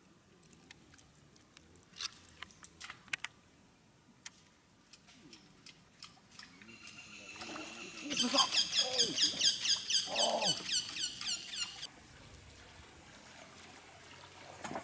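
A wild animal calling in a fast, even run of high chirps, about ten a second, for some four seconds in the middle, then stopping suddenly. Before it, scattered sharp ticks.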